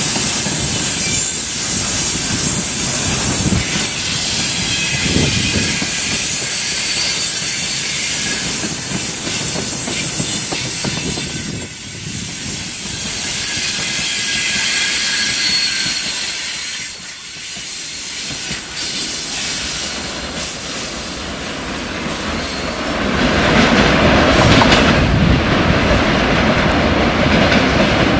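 Freight wagons (tank cars and open gondolas) rolling past close by, with the noise of wheels on rails. A thin, high wheel squeal runs through most of it, flares once more briefly and stops a few seconds before the end.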